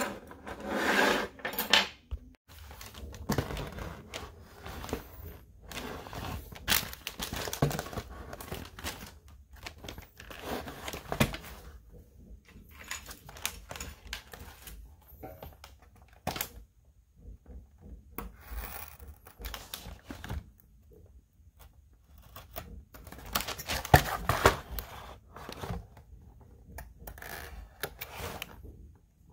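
Handling noise from a boxed toy set being picked up and turned over by hand: irregular scuffs, rustles and plastic crinkles, with a few sharper knocks as the box is set down or bumped.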